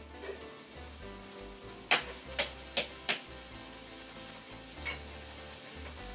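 Chopped onions and garlic sizzling as they go into hot oil in a frying pan, with four sharp knocks about two to three seconds in.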